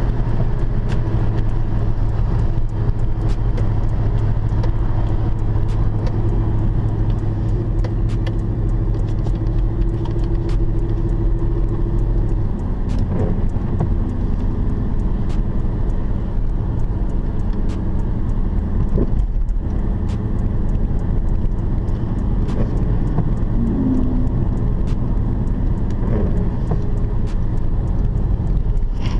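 Steady drone of a 2006 Dodge Charger's 5.7-litre Hemi V8 heard from inside the cabin while cruising, with road noise underneath; the engine note changes about twelve seconds in.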